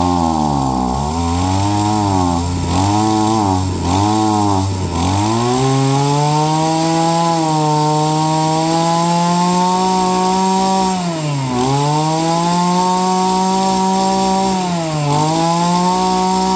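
Mitsubishi TB26 brush cutter's small two-stroke engine running. It idles with several quick throttle blips for the first few seconds, then revs up to high speed and holds there, easing off briefly twice.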